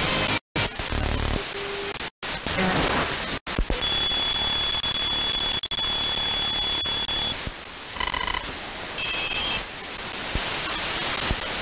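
Hiss and static from an SDRplay RSPduo receiver in AM mode with a Mini Whip active antenna, tuned down through the longwave band. Brief dropouts come in the first few seconds as the frequency jumps, steady high whistling tones hold from about four to seven seconds in, and short beeps follow near eight seconds.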